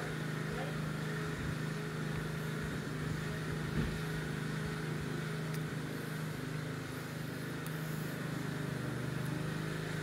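A steady low machine hum, with a few faint clicks and knocks of hard plastic parts being worked loose by hand about three to four seconds in.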